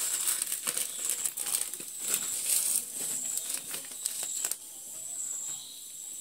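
Thin plastic packets of dry grain crinkling as they are handled and snipped open with scissors, in dense crackly rustles that die down after about four and a half seconds.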